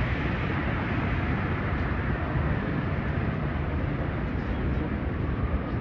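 Steady city street noise, mostly a low traffic rumble with an even hiss over it.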